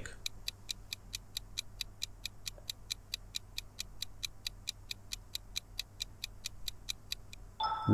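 Quiz countdown-timer sound effect: quiet, evenly spaced clock-like ticks, about five a second, and a short chime near the end as time runs out.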